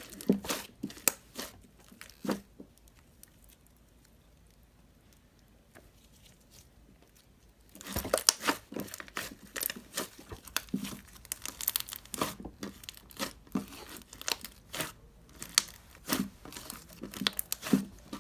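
Clear slime being played with by hand, giving sticky pops and crackles. A few pops at the start, a quiet stretch, then dense popping and crackling from about halfway through.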